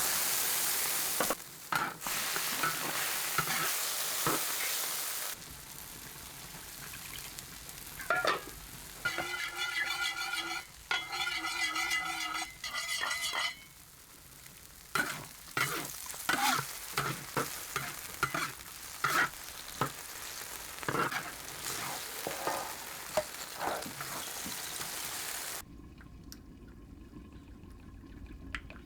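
Food sizzling in hot oil while a spatula stirs and scrapes the pan. The sizzle is loudest at first and then eases, with many short scrapes. Twice near the middle comes a held, pitched squeak-like tone, and the sizzle dies down near the end.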